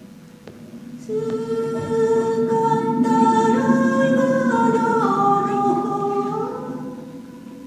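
A woman singing unaccompanied: a slow line of long held notes that step from one pitch to the next, starting about a second in and fading near the end.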